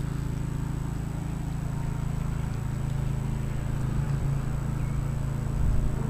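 A steady low mechanical hum that runs without a break.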